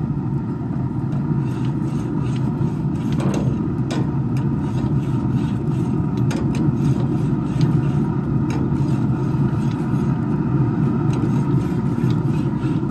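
The notched metal scraper of a BBQ-Aid grill brush rasping back and forth along grill grates, with scattered clicks as the notches catch on the bars. A steady low rumble runs underneath.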